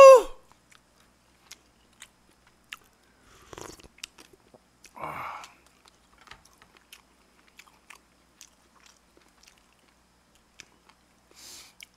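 A man's loud rising vocal exclamation trails off right at the start; then close-miked eating: quiet chewing with scattered small clicks of a spoon and chopsticks against the bowls and tray.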